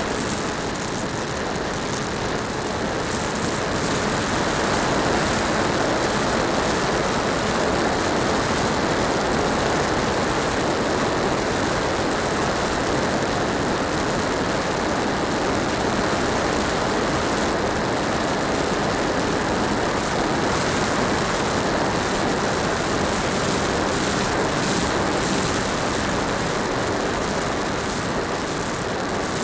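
Electric motor and propeller of an HK Skipper RC seaplane running steadily in flight, heard from a camera mounted on the airframe, mixed with rushing wind. The sound rises slightly about four seconds in.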